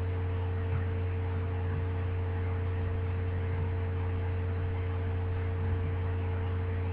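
Steady electrical hum: a constant low drone with a fainter steady higher tone above it, unchanging throughout.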